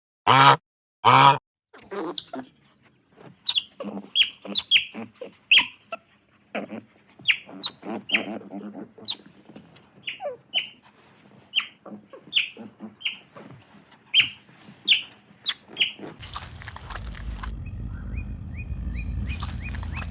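Birds chirping: many short, high chirps that fall in pitch, coming irregularly. They are preceded by a few loud, evenly repeated low calls in the first second and a half. About four seconds before the end they give way to a steady rumbling noise.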